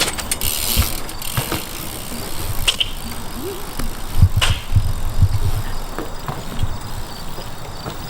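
BMX bike being ridden: tyres rolling on pavement with a steady hiss, broken by several sharp clicks and knocks.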